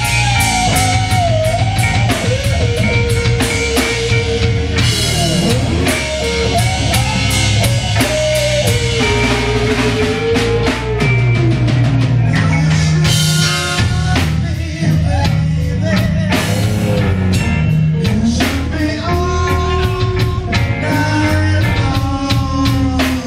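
Live rock band: an electric guitar plays a lead line with string bends and vibrato over a Ludwig drum kit and bass, with cymbal crashes a few times.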